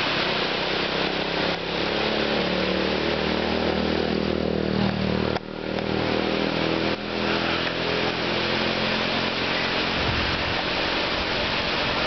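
Steady rush of water pouring over the regulator's concrete spillway. An engine drones under it, most strongly from about two seconds in to about nine seconds in.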